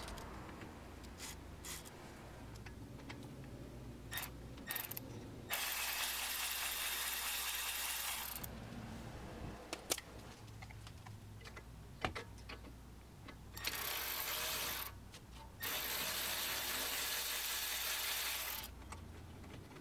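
Hand socket ratchet clicking in runs of a few seconds while undoing the 10 mm caliper guide pin bolts, with a few sharp metallic clicks between the runs.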